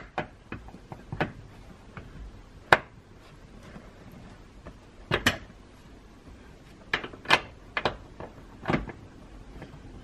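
Sharp metal clicks and clinks of a 13 mm wrench being fitted onto, turned and flipped over on a spring-loaded rear-seat mounting nut, at irregular intervals, the loudest a little under three seconds in and a cluster of them later on.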